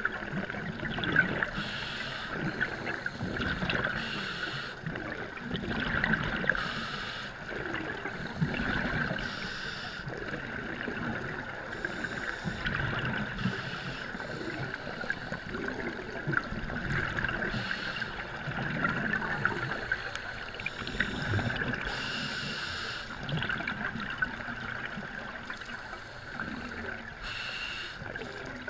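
Scuba breathing heard underwater: a hiss from the regulator comes back every few seconds, over a low rumble of exhaled bubbles and water movement.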